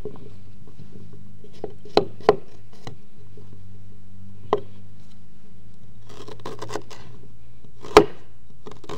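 Knife cutting ginger on a cutting board: a few separate knocks of the blade meeting the board, the loudest about eight seconds in, with a short stretch of scraping just before it.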